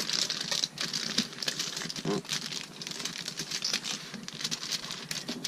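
Aluminium foil crinkling and rustling as it is folded by hand, a dense run of small irregular crackles.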